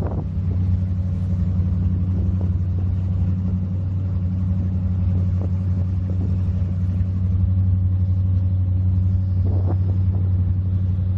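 Fountain Lightning powerboat's engines idling with a steady low drone.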